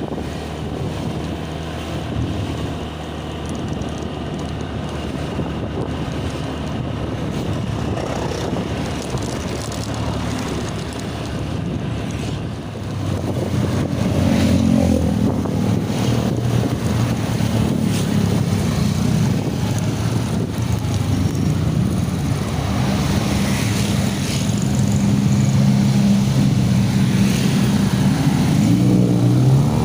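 Road traffic with the low, steady running of a large diesel engine, most likely an intercity bus. It grows louder about halfway through as the vehicle comes close.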